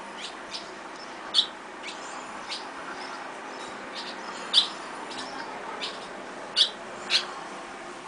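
Young barn swallows chirping: about a dozen short, sharp high calls scattered through, four of them clearly louder, over a steady background hiss.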